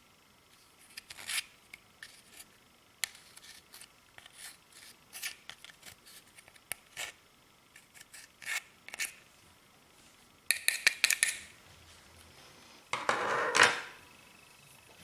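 Clear slime being squeezed and worked by hand, giving scattered sticky clicks and small pops, a quick run of clicks about ten and a half seconds in, and a longer, louder squish near the end.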